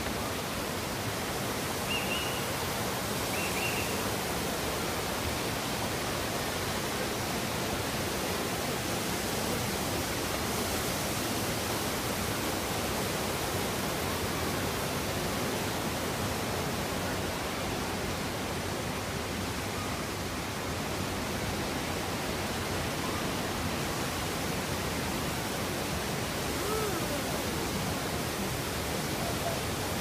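Steady rushing of a high waterfall's falling water, an even hiss that does not change. Two brief high chirps come through it about two and three and a half seconds in.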